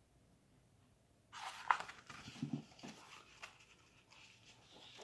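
Faint, brief rustling and handling sounds as a hardcover picture book is closed and set down, starting about a second and a half in, with a soft breath or chuckle among them.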